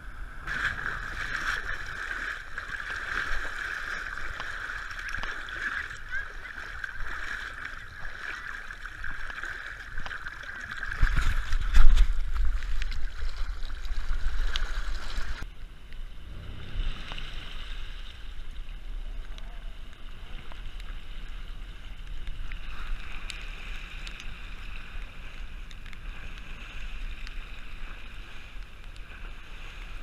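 Fast-flowing floodwater with the steady drone of a small boat's outboard motor as the boat crosses, and a loud low buffeting near the middle. It cuts suddenly to the inside of a four-wheel drive wading through deep floodwater: a low engine rumble and water washing against the vehicle.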